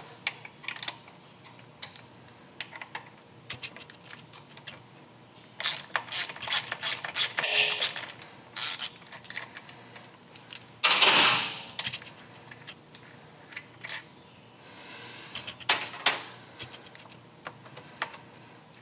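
Hand ratchet clicking in short runs as the bolts of a motorcycle's shifter assembly are undone, with metal tools and parts clinking. There is one louder, longer clatter about eleven seconds in.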